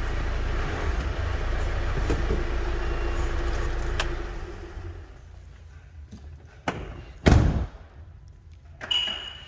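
Steady low rumble from the Ford Transit Custom van that dies away about four and a half seconds in, followed by a click and then a van door shutting with one loud thud. A short high beep near the end.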